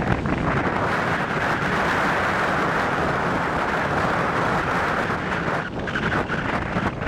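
Strong wind buffeting the microphone over heavy surf breaking on the beach: a steady rushing noise with a low rumble.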